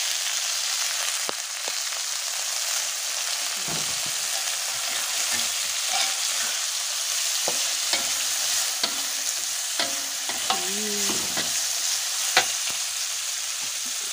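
Shredded cabbage and carrot sizzling steadily as they are stir-fried in a wok, with the spatula scraping and clicking against the pan now and then, one sharper click near the end.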